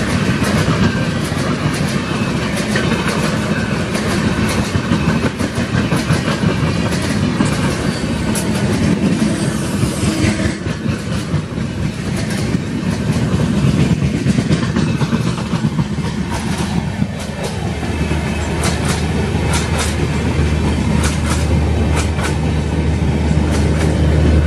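Indian Railways LHB passenger coaches rolling past close by: a continuous rumble of wheels on rail with rapid clickety-clack ticks of wheels crossing rail joints. About two-thirds of the way through a steady low hum joins the rumble.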